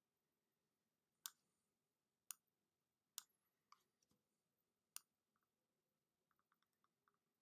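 Faint computer mouse clicks: four sharp clicks spread over a few seconds, with fainter small ticks between them and a little cluster near the end.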